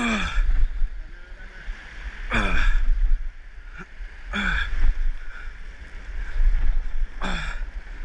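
Ocean surf and wind rumbling steadily on an outdoor microphone, with four brief voice sounds from the fishermen spread through it.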